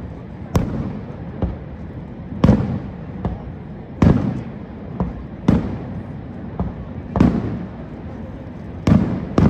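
Aerial fireworks shells bursting: about six loud booms, a second or two apart, each trailing off in a rumbling echo, with smaller pops between them over a steady background hiss.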